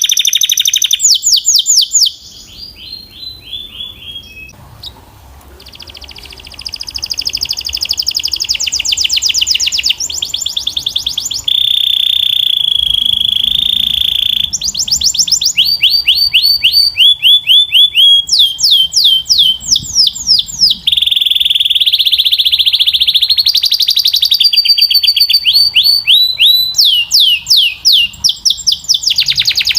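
Belgian canary singing loudly. The song alternates fast trills of repeated sweeping notes with held, rolling tones, and goes quieter for a few seconds near the start before picking up again.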